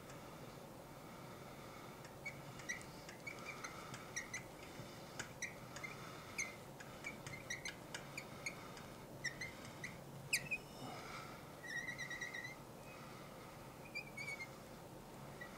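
Marker tip squeaking on the glass of a lightboard while writing: many short, faint squeaks in quick irregular strokes, with one longer squeak about twelve seconds in.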